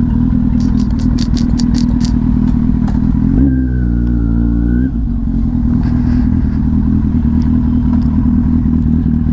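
Kawasaki Z800's inline-four engine running at low speed as the motorcycle rolls slowly. A quick run of sharp ticks comes about a second in, and the note changes for about a second and a half midway.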